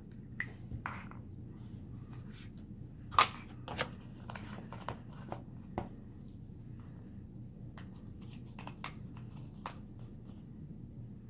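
Paperboard box panels being folded and flaps tucked by hand: scattered crinkles and snaps, the loudest about three seconds in, over a steady low hum.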